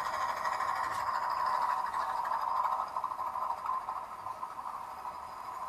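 Fireman Sam Wallaby toy helicopter whirring steadily as its rotor spins, a little quieter from about three seconds in.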